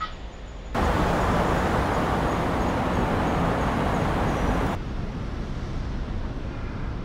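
Steady outdoor background noise like road traffic, with no distinct events. About a second in it cuts to a louder, fuller and brighter rush, which drops back abruptly near the end of the fourth second to a quieter, duller version, as recordings from different microphones are cut together.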